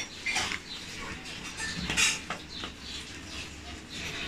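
Small Phillips screwdriver backing a tiny screw out of a laptop LCD panel's mounting bracket: light metallic clicks and scrapes, with a few sharper ticks about two seconds in.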